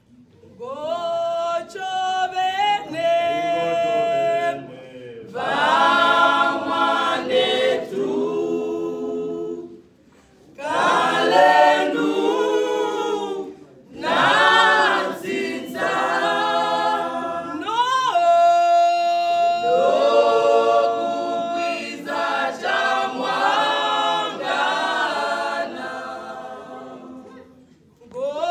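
Choir singing a cappella, several voices together without instruments, in phrases broken by brief pauses every few seconds.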